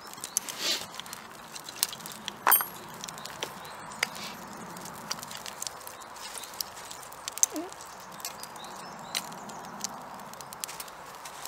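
Small wood fire crackling in a Bushbox XL folding metal stove, with irregular sharp clicks and knocks as sticks are fed into it.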